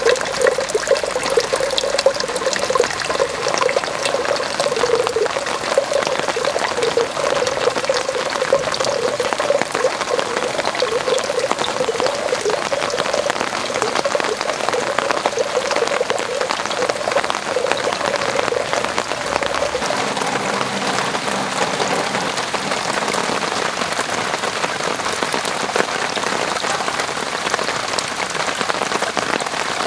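Steady rain falling in a garden, with a run of pouring water alongside it that fades out about two-thirds of the way through, leaving the even hiss of the rain.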